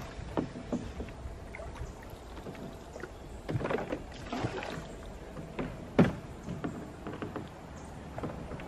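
Bamboo raft on a river: water sloshing with scattered wooden knocks and a couple of swishes, the sharpest knock about six seconds in.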